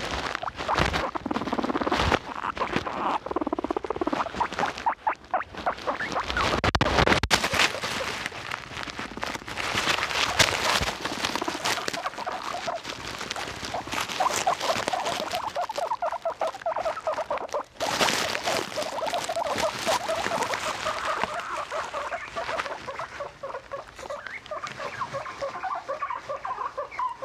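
Guinea pigs squeaking over and over against a constant rustling patter. The squeaks come in a rapid, steady run from about halfway through.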